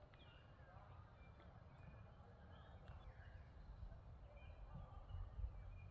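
Faint birds chirping, short repeated calls over a low rumble of wind.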